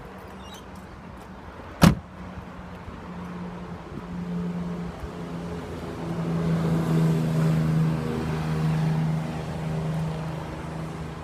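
A single sharp thud about two seconds in, then the Holden Commodore SV6's 3.6-litre V6 running steadily, its note growing louder and fuller from about four seconds in.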